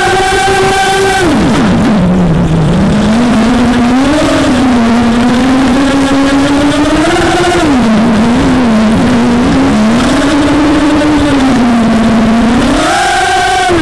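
Racing quadcopter's four 2204 2300kv brushless motors with 5045 props whining in flight on a 4S battery, the pitch rising and falling with the throttle: high at the start, dropping low about two seconds in, then rising sharply again near the end.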